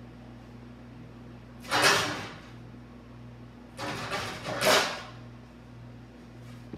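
Two loud sliding scrapes in a kitchen, the second about two seconds after the first and longer, over a steady low electrical hum.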